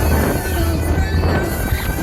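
Music: a held, slightly wavering melody line over heavy, steady bass.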